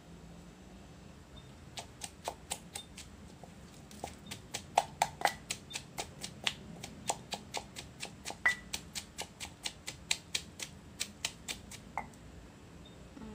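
Wooden pestle pounding shredded green papaya and chilies for som tam in a mortar: a steady run of sharp knocks, about three a second, starting about two seconds in.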